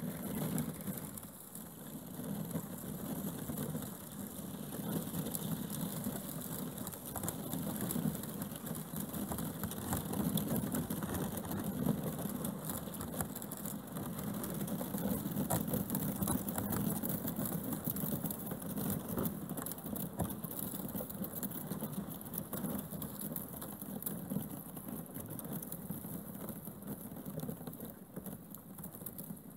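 Kayak bow pushing through thin skim ice: a continuous dense crackling and tinkling of ice plates breaking and scraping along the hull.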